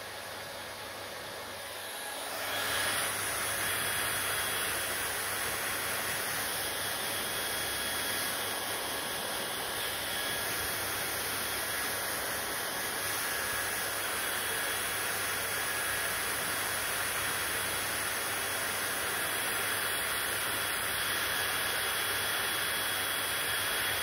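Hand-held hair dryer blowing, a steady rushing hiss with a faint high whine, growing louder about two seconds in.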